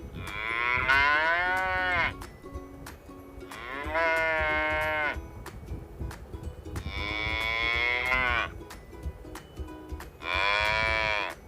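A cow mooing four times. Each moo lasts one to two seconds, with short pauses between them.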